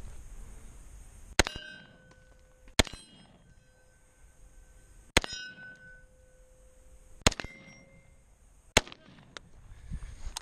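AR-15 rifle fired five times, the shots a second and a half to two seconds apart, several of them followed by the ringing of a hit steel target.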